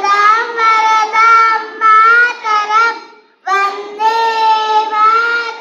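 Young schoolchildren singing a song in long held notes, with a short break about three seconds in.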